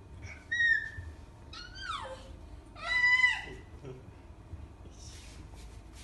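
An 11-month-old baby's high-pitched squeals, three short ones: the second slides down in pitch and the third, about three seconds in, is the loudest. Faint rustling follows near the end.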